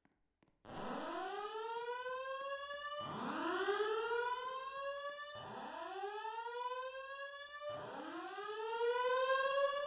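Fire alarm voice evacuation speaker sounding its whoop tone: four rising sweeps in a row, each about two and a half seconds long, starting just under a second in.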